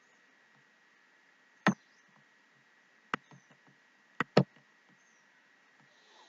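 Computer mouse clicking as files are selected: four sharp clicks, the last two in quick succession, over a faint steady high tone.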